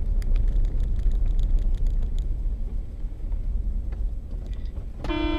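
Car driving, a steady low rumble of engine and road noise with a few faint clicks. A steady pitched tone sets in near the end.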